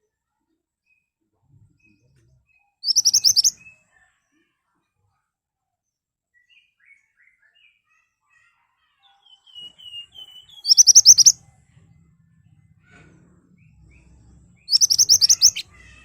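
Pied bushchat (mantenan) singing: three short, rapid strings of sharp, high notes, with a few soft, quieter notes in between.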